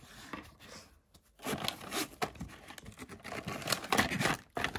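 Hands rummaging among small items and packets in a drawer organizer: rustling and crinkling with a few light knocks, picking up about a second and a half in.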